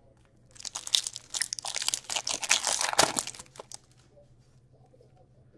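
Foil wrapper of a hockey card pack being torn open and crinkled: a dense crackling that lasts about three seconds.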